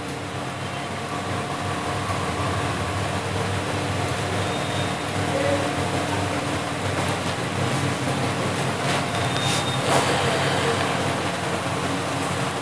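Steady machine hum with a few faint steady tones, the background running of the room, with a few faint short rustles about nine to ten seconds in.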